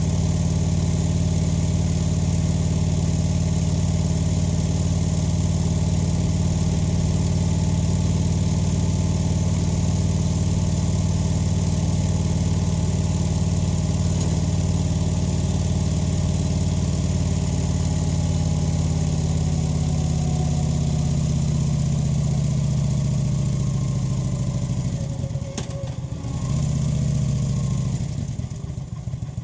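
Kawasaki VN900's V-twin engine running at a steady pace, then its pitch falling gradually as the bike slows, with a brief rise in revs near the end before it drops back to lower revs.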